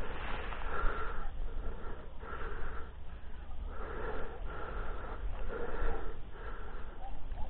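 Rapid, wheezy breathing close to the microphone, a little more than one breath a second, over a low rumble of wind on the microphone.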